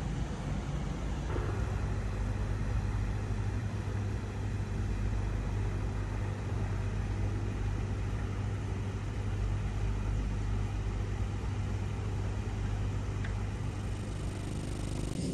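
Steady low drone of a running engine or generator, holding one low pitch throughout, that comes in about a second in.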